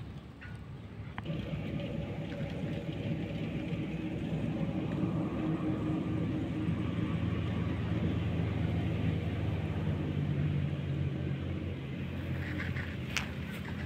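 Low, steady engine rumble that rises about a second in and holds, with a few faint clicks near the end.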